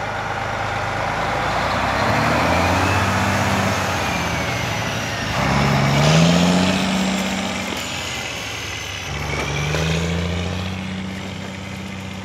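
Freightliner tandem-axle truck tractor's diesel engine pulling away and accelerating, its pitch climbing three times with drops between as it shifts up through the gears.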